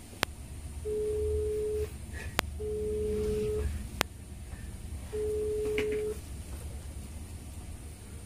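Outgoing phone call ringing through a phone's loudspeaker: a steady low ringback tone about a second long, heard three times, with a few sharp clicks in between. The call goes unanswered.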